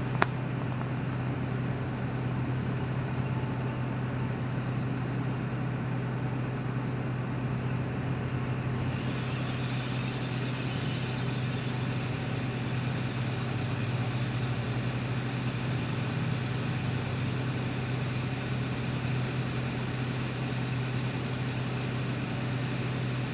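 Heavy vehicle engine running at a steady speed, a constant low hum under an even noise, with more hiss from about nine seconds in.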